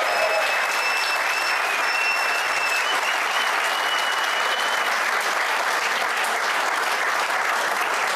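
Studio audience applauding steadily. A thin, high, steady tone rides over the clapping for about the first five seconds.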